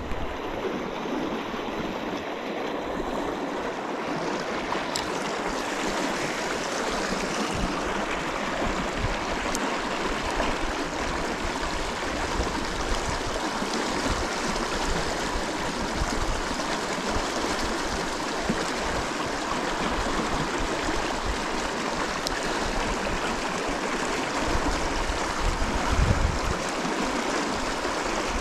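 Steady rush of the South Platte River flowing through the canyon.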